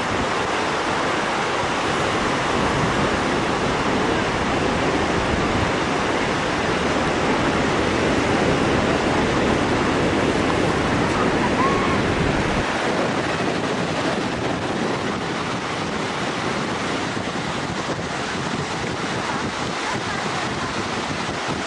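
Ocean surf breaking on a sandy beach, a steady wash of waves, with wind rumbling on the microphone that eases about halfway through.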